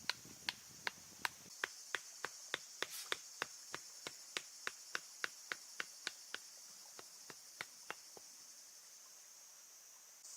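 A steady run of sharp knocks, about three a second, that grow fainter and stop about eight seconds in. They fit chopping on a wooden board. A steady high insect hiss runs behind them.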